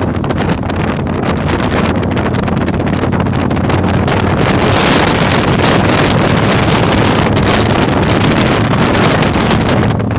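Heavy wind buffeting the microphone on a moving Yamaha Virago 1100 motorcycle, with the bike's air-cooled V-twin engine running steadily underneath. The wind noise swells louder from about halfway through.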